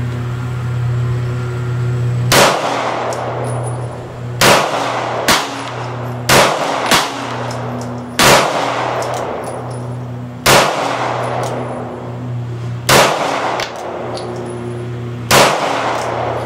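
Glock 19 9mm pistol fired nine times in slow fire, each shot sharp and followed by a ringing echo. The shots come about one to two and a half seconds apart, with two quick pairs among them.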